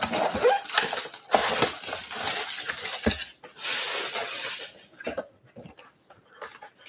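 A cardboard box of 2020 Topps Stadium Club Chrome baseball cards being handled and opened: its wrapping crinkles and the cardboard rustles and scrapes against the wooden table. The sounds thin out after about five seconds.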